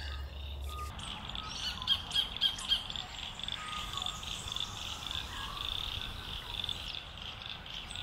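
Sacred kingfisher calling: a long run of short, high, evenly repeated notes, several a second, with a few faint whistles from other birds.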